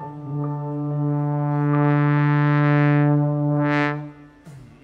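Horn section of a jazz ensemble, brass with saxophones, holding one long chord that swells steadily louder, then cuts off about four seconds in.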